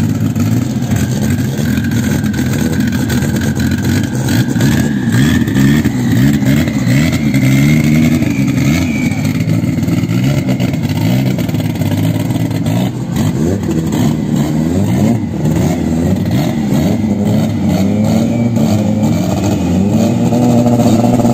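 Drag race car engines running at the start line and revved up and down in repeated blips, with a thin high whine rising slowly through the first nine seconds or so.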